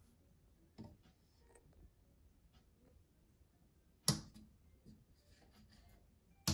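Two wood-framed glass cabinet doors shut one after the other, each with a sharp click as it meets the cabinet: the first about four seconds in and the second at the very end. A fainter knock of handling comes about a second in.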